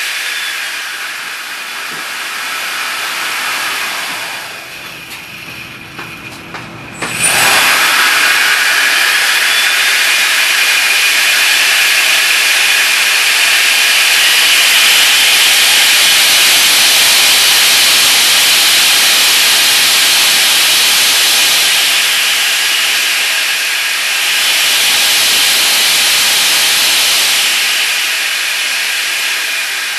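A 70 mm electric ducted fan, driven by an F2839 KV1950 outrunner motor on a 6S LiPo, running with a very loud jet-like rushing whine. It eases down over the first few seconds, is throttled back up abruptly about seven seconds in, and is held near full power with a couple of brief dips later on.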